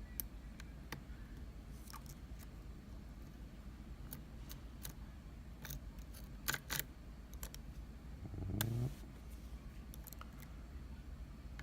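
Small metallic clicks and ticks of lock picks and a tension wrench working a pin-tumbler challenge lock, scattered and irregular, with a quick cluster of louder clicks about two-thirds of the way through. Shortly after comes a brief low hum rising in pitch.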